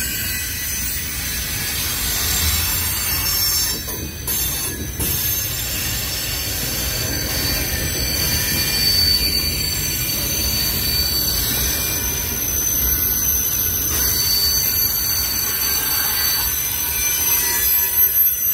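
Freight cars of a long mixed freight train rolling past close by, a steady rumble of wheels on rail with thin, high-pitched wheel squeal held over it. A couple of brief knocks about four to five seconds in.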